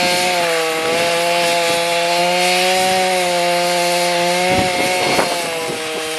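Two-stroke chainsaw running at high speed while cutting wood, its note dipping slightly under load. A few sharp knocks come about four and a half seconds in, and the revs rise briefly at the end as the bar frees up.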